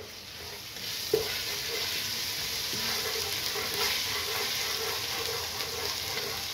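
Ginger-garlic paste sizzling in hot oil in a pot as it is stirred with a spatula. The sizzle builds up about a second in and then holds steady, with a single light knock near the start.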